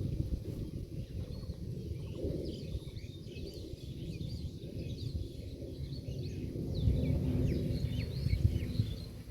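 Small birds chirping repeatedly in short, quick calls over a steady low rumble.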